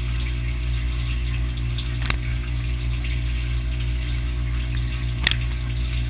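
Dishwasher running its wash cycle, heard from inside the tub through a waterproof camera case: a steady low hum from the pump motor under the hiss and splash of water thrown by the spinning spray arm. Two sharp ticks stand out, about two seconds in and near the end.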